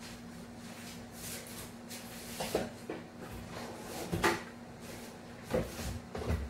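A few short knocks and clatters of kitchen things being handled, about two and a half seconds in, around four seconds and again twice near the end, over a steady low hum.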